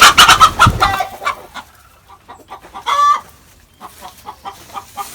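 Chickens clucking and squawking. A loud flurry of noise comes in the first second, then short calls, the clearest about three seconds in.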